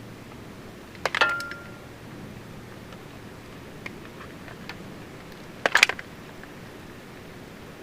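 Metal clinks and clatter from hand tools and small parts being handled. There are two short bursts, about a second in and near six seconds, the first with a brief metallic ring after it, and a few light ticks between them.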